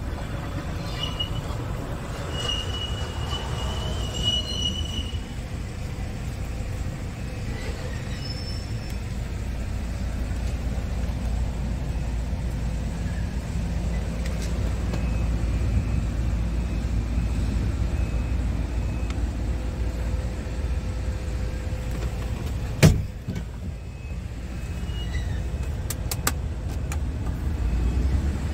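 Scania P280 truck's nine-litre five-cylinder diesel idling, a steady low rumble heard inside the cab, with one sharp knock late on.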